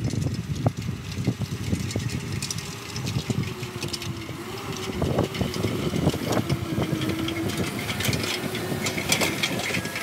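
McCormick X8 tractor engine running steadily at low revs as it pulls a 12-foot disc through the ground, with scattered clicks and knocks over the engine note.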